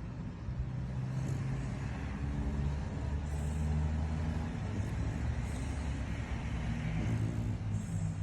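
French bulldog snoring loudly: a low, steady rumble with a hissing breath about every two seconds.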